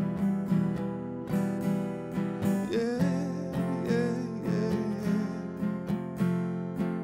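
Acoustic guitar strummed in a steady rhythm, about two strokes a second, playing a ballad's instrumental passage between sung lines.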